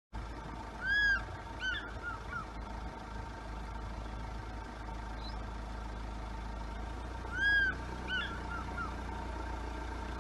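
An animal calling twice, each time one long arched note followed by three or four shorter falling notes, over a steady low rumble.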